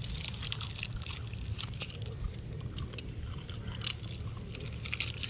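Puppies crunching and chewing dry biscuits: a quick, irregular run of crisp crunches and clicks over a low steady hum.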